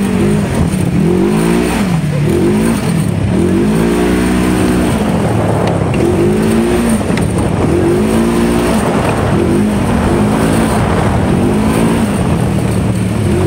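Side-by-side UTV engine on the move, revving up and easing off over and over, roughly once a second, as the throttle is pulsed.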